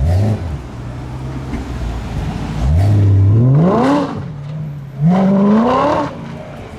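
A car engine revved up: a short blip at the start, then two long rising revs, each climbing in pitch for about a second before dropping back.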